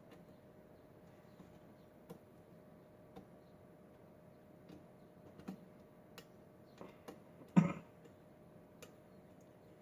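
Scattered small clicks and ticks of a lock pick and tension wrench working the pins of a Schlage pin-tumbler lock, with one louder knock a little over two-thirds of the way through.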